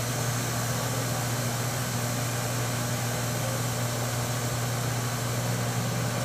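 Steady low hum under a constant even hiss, with no distinct events.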